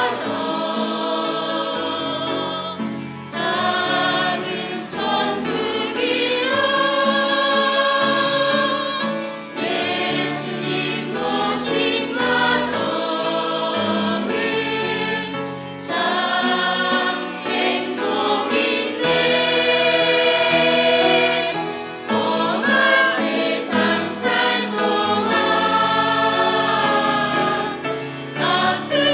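Church choir singing a Korean Christian song in long held phrases.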